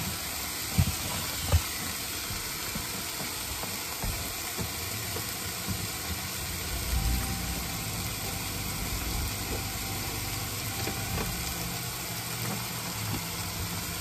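Ground beef sizzling in a pot on an induction cooktop, a steady hiss, with two sharp thumps within the first two seconds and a low hum that swells about halfway through.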